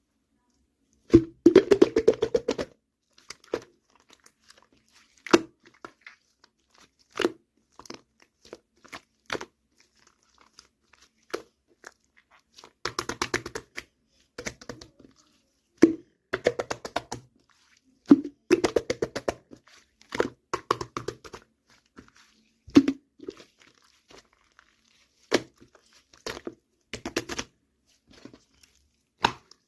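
Slime being squished and pressed by hand. Bursts of rapid crackling clicks last a second or two each, with single pops in between.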